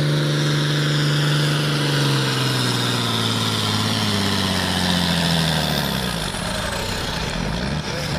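John Deere diesel tractor engine, hot-farm class, pulling a weighted sled at full throttle. It runs steady and high for about two seconds, then lugs down, its pitch falling gradually over the next few seconds as the sled's load builds.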